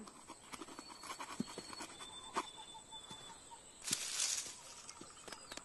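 Faint outdoor ambience of small birds chirping, with scattered light ticks and a brief rustling swish about four seconds in.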